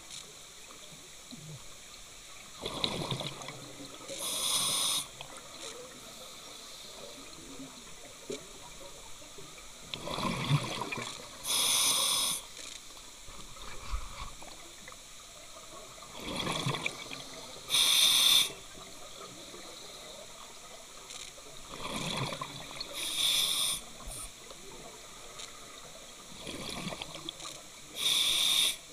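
Scuba breathing through a demand regulator underwater: five breaths about six seconds apart. Each is a gurgling rush of air and exhaust bubbles followed by a sharp hiss of about a second.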